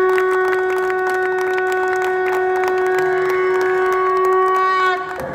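Conch shell (shankh) blown in one long steady note, held for about five seconds, with scattered hand-clapping under it.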